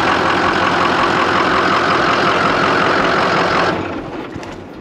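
Diesel engine of a full-size Jeep J10 crew-cab conversion idling steadily, then shut off about three and a half seconds in, its sound dying away.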